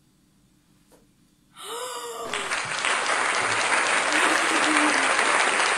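A short excited voice about a second and a half in, then loud applause and cheering that starts abruptly a moment later.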